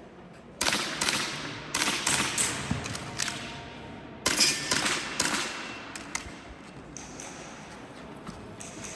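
Gas blowback airsoft pistol, a Tokyo Marui Hi-Capa, fired in quick strings of shots: one string starting about half a second in and a second starting about four seconds in, each shot a sharp crack with the slide's clack.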